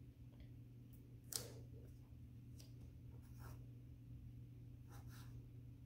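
Sharpie permanent marker drawing on paper: a handful of short, faint scratchy strokes, the loudest about a second and a half in, over a low steady hum.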